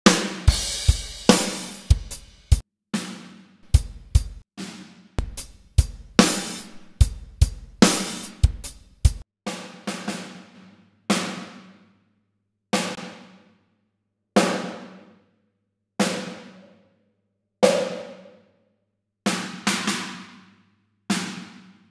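Sampled acoustic drum kit from Superior Drummer 3 playing a groove of kick, snare, hi-hat and cymbals. About nine seconds in, the kick drops out and only single hits with long ringing tails remain, spaced a second or more apart.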